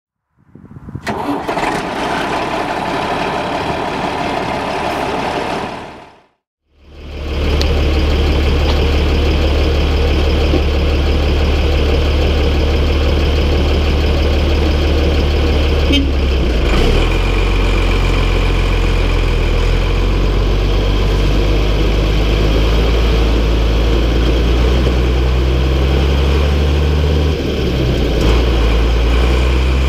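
MB Trac 1800's six-cylinder diesel engine running at a steady speed, after a short separate sound that fades in and out in the first six seconds. The engine note shifts slightly about halfway through and dips briefly near the end.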